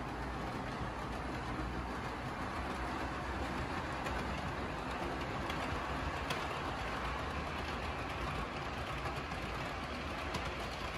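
HO scale model freight train running along the track, a steady running noise with faint scattered clicks of the wheels on the rails.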